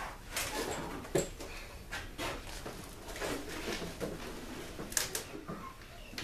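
Scattered clicks, knocks and clinks of hand tools and parts being handled on a small two-stroke portable generator on a wooden workbench, with a sharper knock about a second in and another about five seconds in.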